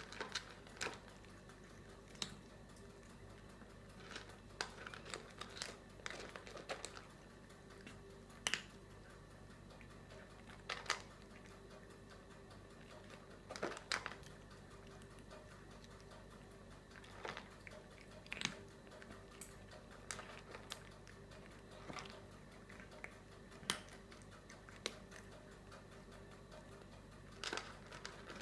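A cat eating from a bowl: irregular sharp crunching clicks as it chews, some single and some in quick clusters, a few every couple of seconds.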